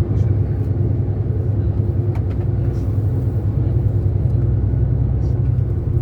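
Engine and road rumble of a moving tour bus, heard from inside the cabin: a steady low drone.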